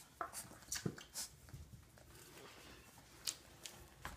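Four-week-old Jindo puppies suckling at their mother's teats: faint, irregular wet sucking and smacking clicks.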